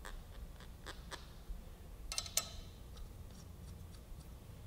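Small steel brake-rotor bolts being handled and threaded in by hand: faint scattered metal clicks and light scrapes, with a brighter cluster of clicks a little past two seconds in.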